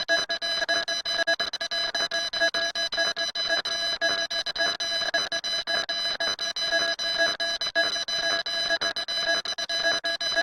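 A harsh electronic alarm-like tone, several fixed pitches sounding together, stuttering with rapid, irregular cut-outs throughout.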